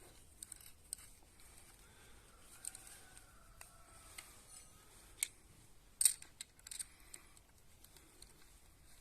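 Scattered light clicks and taps of small metal parts and tools being handled during assembly, with a sharper cluster of clicks about six seconds in.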